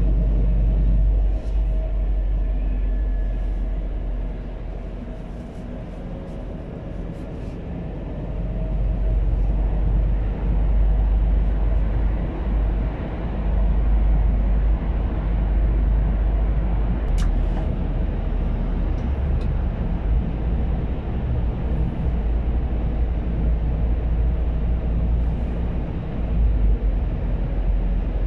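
Cab-interior drive noise from a Scania P280 truck running on biogas: a steady low engine and road rumble. It eases off for a few seconds about a quarter of the way in, then builds again.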